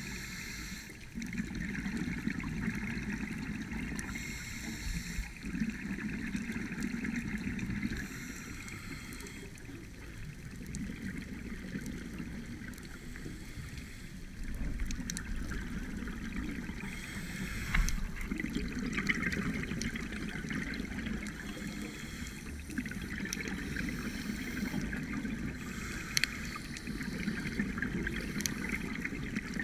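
Muffled underwater noise heard through a GoPro's waterproof housing, swelling and fading every few seconds with scuba regulator bubbles from the divers' breathing. Two short knocks near the middle and near the end.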